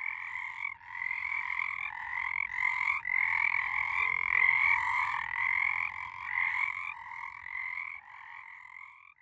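A chorus of frogs calling, many overlapping croaking calls repeating without a break, growing quieter near the end.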